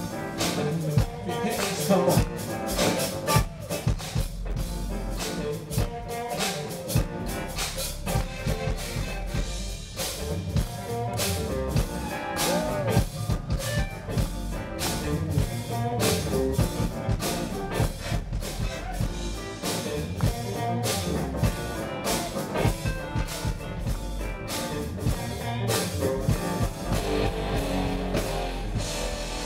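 Live funk band playing through a stage PA, heard loud from the crowd: a drum kit keeping a steady beat over heavy bass guitar and keyboards.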